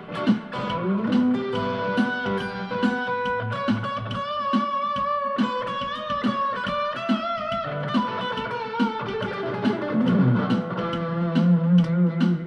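PRS electric guitar played through a 10-watt Roland Cube-10 amp on its orange Crunch channel, in single-note lead lines with bends and wide vibrato. A low note rings on near the end.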